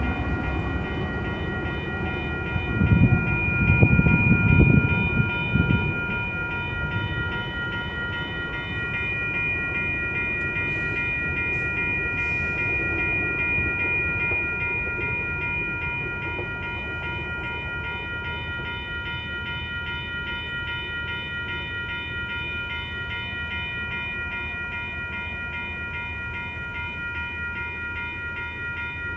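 Railroad crossing warning bell ringing steadily with the signals flashing. Under it, a passing freight train's low rumble swells briefly about three to five seconds in, then fades away as the train leaves.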